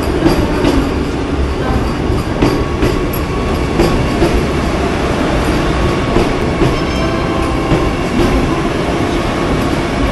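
Vande Bharat Express electric train set rolling along the platform: a steady rumble of wheels on rail, with occasional clacks and a faint high squeal around the middle.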